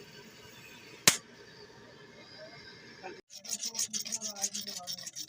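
A single sharp knock about a second in, then, after an abrupt cut, rapid rasping strokes, several a second, like filing or scraping at a hard surface.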